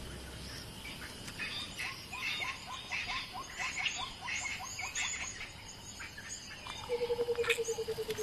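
Wild outdoor ambience of small animal calls: a run of short, repeated chirps, then a steady, fast trill that starts about seven seconds in.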